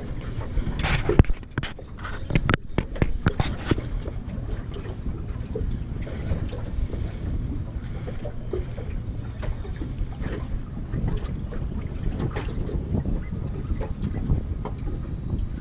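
Wind buffeting the microphone over water lapping against a small boat's hull, with a few sharp knocks and clicks in the first few seconds.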